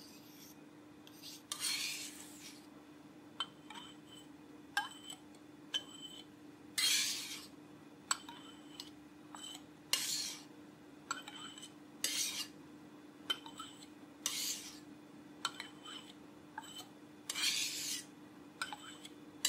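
Metal palette knife scraping thick, freshly mulled watercolor paint off a glass slab and wiping it into a glass jar: irregular scrapes every one to three seconds, with short ringing clinks of metal on glass in between. A faint steady hum sits underneath.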